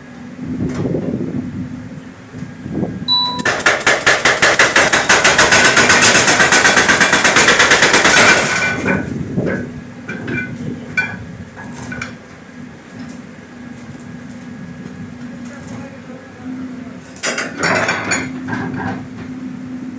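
Jackhammer pounding hard concrete: a run of rapid hammer blows lasting about five seconds starts a few seconds in, with a shorter burst near the end, over a steady low machine hum.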